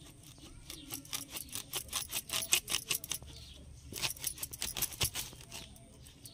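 Raw jackfruit being sawn through on a boti, the fixed curved floor blade: a rapid run of crisp crunching, scraping strokes as the spiny green rind and fibrous flesh split. The strokes come in two spells, the second starting about four seconds in.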